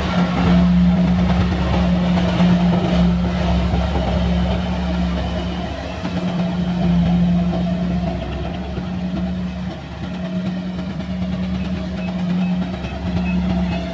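Kubota rice combine harvester running: a steady engine drone with a constant low hum whose level rises and falls a little.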